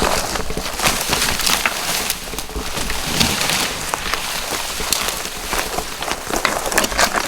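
Dry twigs and brush crackling and snapping close by, in an irregular string of sharp cracks, as someone walks through dry undergrowth.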